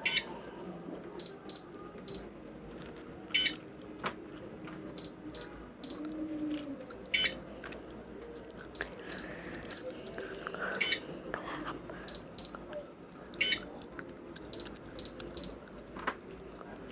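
Toy cash register keys beeping as they are pressed: short high-pitched beeps in irregular runs, with a few louder clicks among them.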